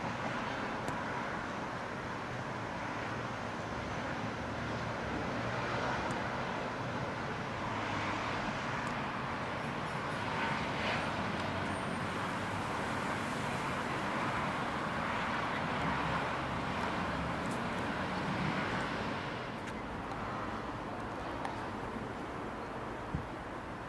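Outdoor urban background noise of distant road traffic: a steady hum that swells and eases gently as vehicles pass, with a single small click near the end.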